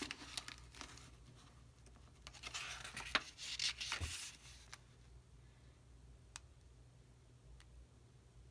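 Paper pages of an old booklet being handled and turned: rustling and scraping with several sharp clicks over the first four seconds or so, then two faint ticks.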